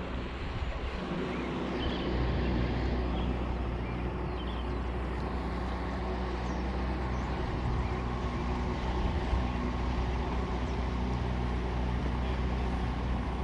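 An engine running steadily at an even speed, a constant low hum with several held tones.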